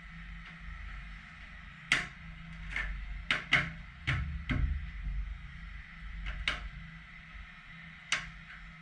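Irregular sharp clicks and knocks of a plastic vortex generator being handled and pressed into place on the car, about eight in all, with several close together in the middle.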